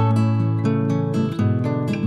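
Background music: acoustic guitar strumming and plucking chords at a steady tempo.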